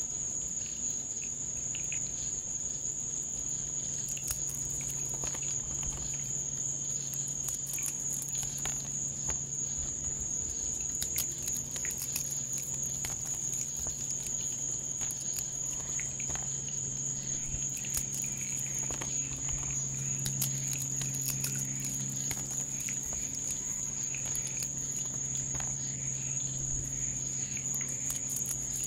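A steady, high-pitched chorus of night insects such as crickets, over a low steady hum, with scattered small crackling clicks throughout.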